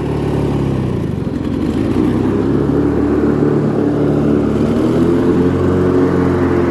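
Briggs & Stratton opposed-twin engine of a White LT 1650 lawn tractor running with the mower deck engaged, cutting grass. The engine note shifts a couple of times as the load changes.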